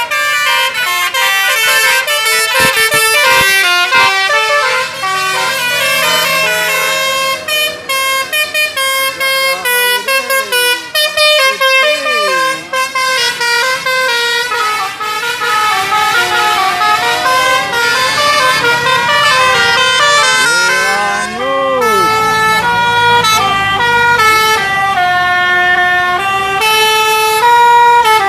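Telolet basuri musical air horns on tour buses, mounted in roof trumpets, playing fast tunes of steady notes that step from pitch to pitch. A few sliding whoops cut in partway through and again after about 21 seconds.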